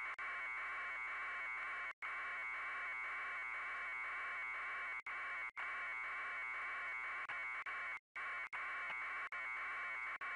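Steady static hiss from a degraded aerial video feed with no other sound, cutting out completely for an instant several times: about 2 seconds in, twice around 5 seconds, and near 8 seconds.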